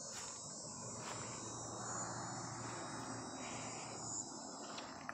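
Insect chorus, a steady high-pitched drone, over faint low outdoor background noise.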